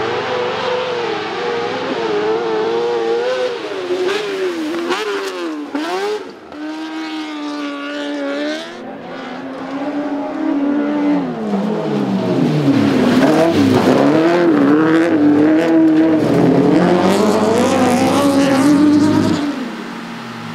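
Autocross race cars on a dirt track, their engines revving up and down repeatedly through the corners. From about halfway in, several engines run at once.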